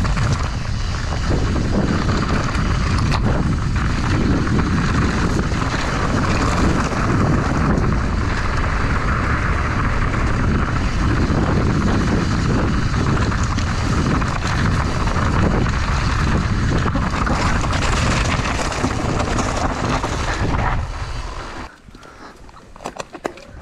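Mountain bike descending a loose, rocky trail at speed, heard from a helmet camera: a steady rush of wind over the microphone with tyres rolling over stones and the bike clattering and knocking. About 21 seconds in it cuts off abruptly to a much quieter scene with a few scattered clicks.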